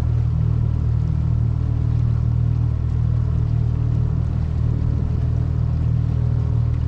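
Boat motor running at a steady speed, a constant low hum.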